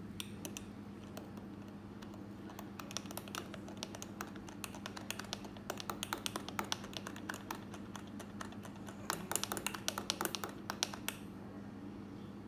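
Metal spoon clinking against the inside of a drinking glass while stirring thick egg coffee, in quick runs of light ticks that stop shortly before the end. A steady low hum runs underneath.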